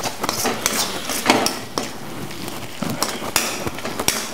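Long-handled steel ladle scraping and clinking against a stainless steel kadai as thick mutton masala is stirred, with irregular knocks several times a second.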